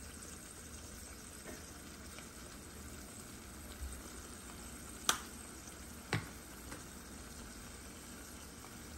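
Sofrito, tomato sauce and pigeon peas simmering in an aluminium pot on a gas burner, a low steady sizzle. Two sharp clicks come about five and six seconds in.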